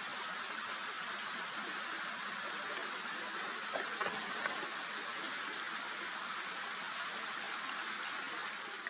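Steady rushing of water, an even hiss with no rhythm, with a few faint ticks about halfway through.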